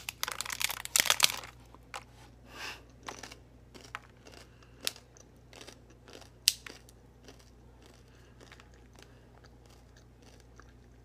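A person bites into a hard taco shell with a burst of crunching, then chews, the crunches growing sparser and fainter until they stop about seven seconds in.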